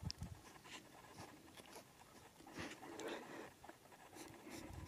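Faint, scattered rustling as a Siberian husky noses about in long grass between stones.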